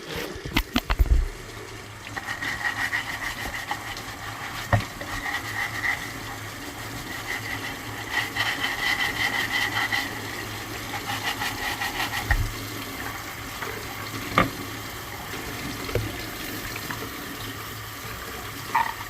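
Tap water running into a sink while a scrub brush works, with a few sharp knocks against the sink along the way.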